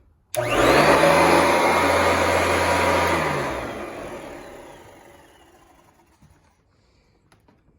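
Royal commercial vacuum cleaner switched on, its motor starting suddenly with a steady hum and rush of air for about three seconds, then switched off and winding down, its pitch falling as it fades over a couple of seconds.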